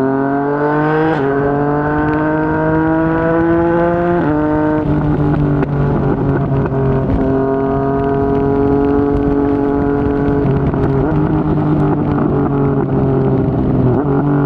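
Yamaha MT-09's three-cylinder engine through a Yoshimura R55 slip-on exhaust, revving up under acceleration with two upshifts in the first few seconds, each a sudden drop in pitch, then running at a steady cruising speed.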